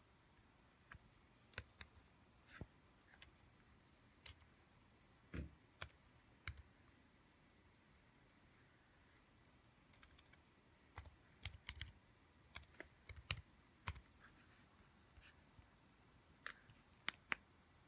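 Faint typing: scattered, irregular key clicks and taps with short pauses, busiest about two-thirds of the way through, as login details are entered.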